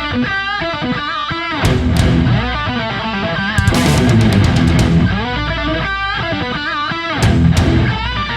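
Heavy metal music with electric guitar over a steady beat.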